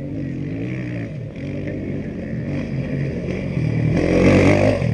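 Off-road rally motorcycle engine at hard throttle, its pitch climbing and dropping back several times through gear changes as the bike approaches, loudest about four seconds in as it passes close by.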